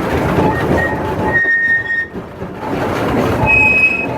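Railroad cars rolling on track: a steady rumble, with two brief high-pitched wheel squeals, one about a second and a half in and a higher one near the end.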